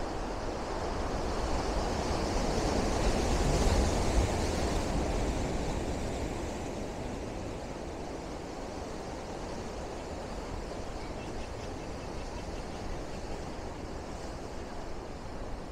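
Pacific surf breaking against granite boulders and washing back through the rocks. It swells to its loudest about three to four seconds in, then settles into a steady wash.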